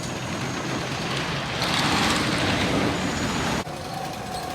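Wooden roller coaster train rumbling along its track, with a louder, hissing rush for about two seconds in the middle before it cuts off abruptly.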